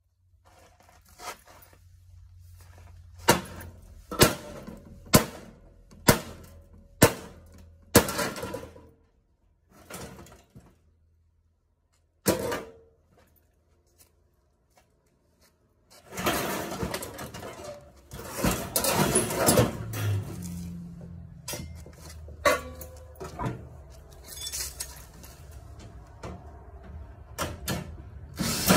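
Washing machine being dismantled for scrap: six sharp knocks about a second apart, then a few scattered knocks, and from about halfway on a long stretch of parts scraping and rattling as they are worked loose.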